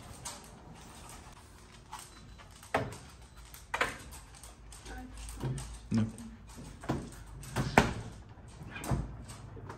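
Refrigerator door and plastic crisper drawers being opened and shut: a series of short knocks and clunks, about six over several seconds.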